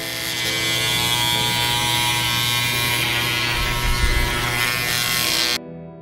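Corded electric hair clippers buzzing steadily as they shave through short hair on a head, with a brief low rumble about four seconds in. Near the end the buzz cuts off suddenly and electric guitar music takes over.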